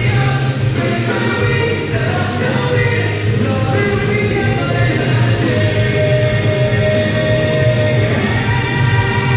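Live rock band playing, with singing over steady drums and bass. A sung or played note is held for a couple of seconds past the middle.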